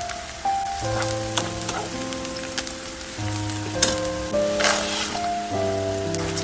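Food sizzling in oil in a frying pan, with scattered clicks of stirring, under background music with sustained melodic notes.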